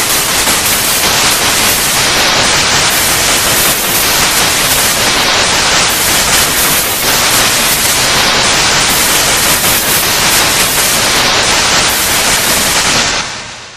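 Loud analogue TV static: a steady rush of white-noise hiss across the whole range, with no tone or voice in it, fading out near the end.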